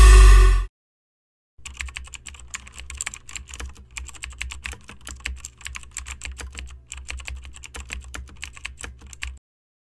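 Background music cuts off within the first second. After a short gap comes a computer keyboard typing sound effect: rapid, irregular key clicks for about eight seconds that stop abruptly near the end.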